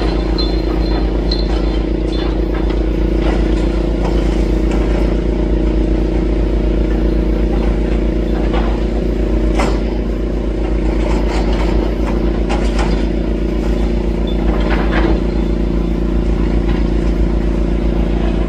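Demolition excavator's diesel engine running steadily, with scattered knocks and clatter as its cruncher breaks up the building.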